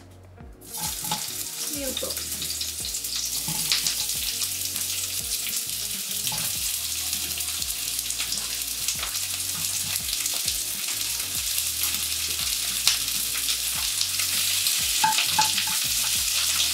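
Onion wedges sizzling steadily in hot oil in a Staub cast-iron pot, with light clicks of a spatula stirring them. The sizzle starts about a second in as the onions go into the oil and gets a little louder near the end.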